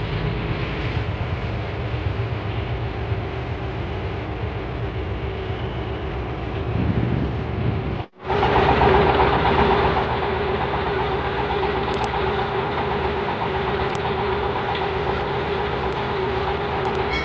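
Klotok riverboat's engine running steadily. About eight seconds in, the sound cuts out for a moment and comes back louder.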